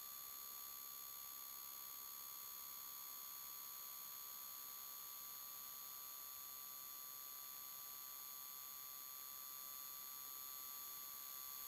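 Faint, steady, high-pitched electronic whine of several fixed tones over hiss, with no engine or wind noise: electrical interference in the recording rather than sound from the ride.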